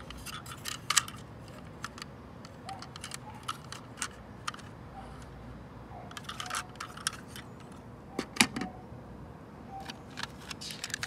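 Small plastic toy trucks clicking and clattering as they are turned in the hand and picked up, in clusters of quick clicks, with one sharper knock about eight seconds in.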